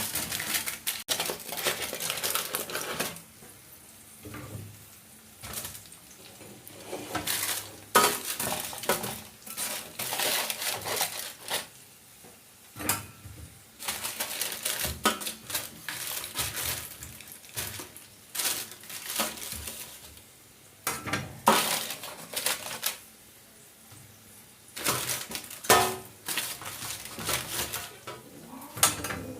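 Metal utensil clinking and scraping against a cooking pot in irregular bursts, with short pauses between them.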